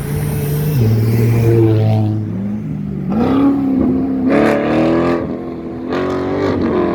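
A car's engine revving hard as it accelerates past, its pitch dropping, then climbing and stepping up several times with louder surges in the second half.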